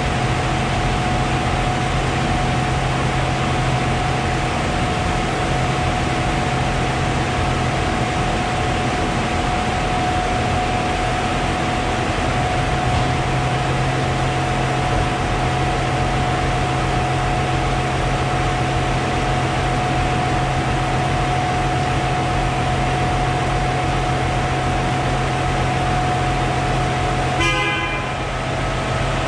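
A machine running steadily: a constant drone with a whine held on one pitch. Near the end it briefly dips, with a few knocks.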